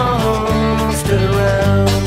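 Acoustic folk-country band playing an instrumental passage, guitar-led, with a melody line sliding downward over a steady bass.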